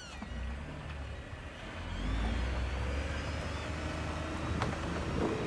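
Vehicle driving on a gravel dirt road: a steady low rumble of engine and tyres that grows louder about two seconds in.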